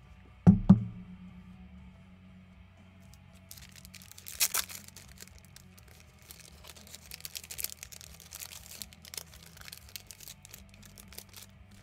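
Two sharp knocks about half a second in, then packaging being crinkled and torn. The loudest tearing burst comes about four and a half seconds in, followed by a run of small clicks and rustles. Faint background music plays underneath.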